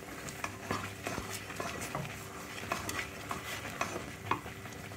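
A spatula stirring thick semolina halwa in a kadai, with irregular soft scrapes and taps against the pan as the thickening mixture is worked so it doesn't stick to the bottom.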